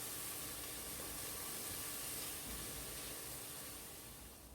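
Chopped shallots sizzling steadily in hot oil in a frying pan, a continuous hiss that fades away near the end.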